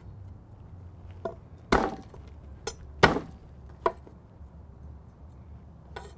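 Garlic cloves being smashed under the flat of a chef's knife on a wooden cutting board: a series of sharp knocks, the two loudest about a second apart near the middle, with lighter taps around them.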